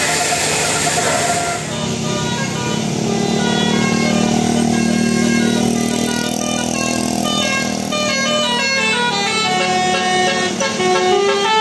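Bus telolet horn playing a tune: a quick run of pitched horn notes stepping up and down, the notes coming faster near the end.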